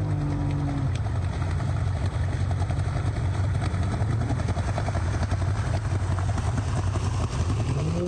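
Two-stroke outboard motor running steadily, a new engine still being broken in, pushing a heavily loaded boat through deep water without getting up on plane. Near the end its pitch rises as it revs up.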